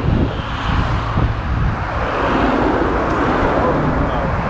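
Road traffic passing close by on a multi-lane road: a steady noise of tyres and engines that swells about halfway through as a vehicle comes past.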